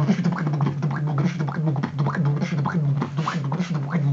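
Beatboxing: a steady low hummed bass tone held underneath rapid mouth-made clicks, snares and short rising scratch-like sounds, in a dubstep style.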